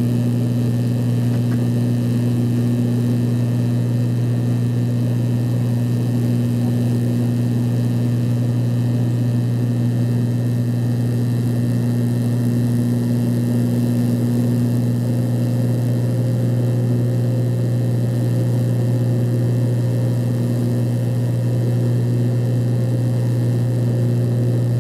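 Antonov An-140 twin-turboprop engines and propellers heard inside the passenger cabin: a loud, steady, low propeller drone that holds an even pitch throughout.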